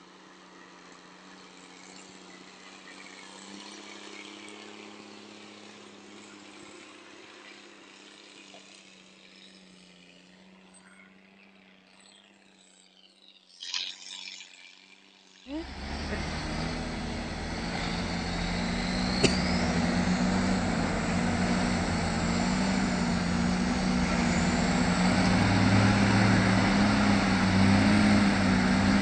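Logging truck engines running: faint at first, then much louder after an abrupt cut about halfway in, a steady low drone with road noise that grows louder toward the end.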